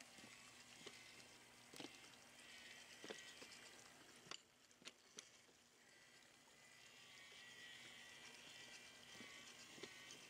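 Near silence: faint outdoor ambience at night, with a few soft clicks scattered through it.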